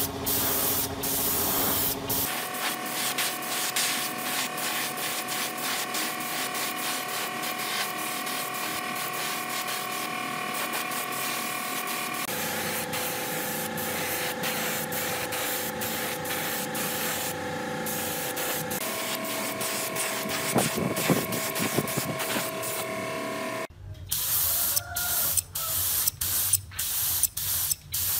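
Steady hiss of spraying with a motor's whine underneath, its pitch jumping a few times. Near the end it breaks into short separate spurts of spray.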